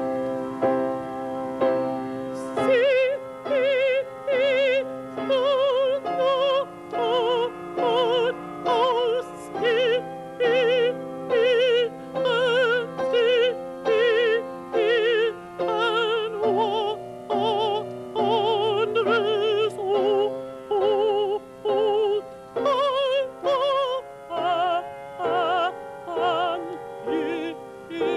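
Male opera singer singing in full operatic voice with a wide vibrato, a long run of short separated notes, over piano accompaniment that plays alone for the first couple of seconds.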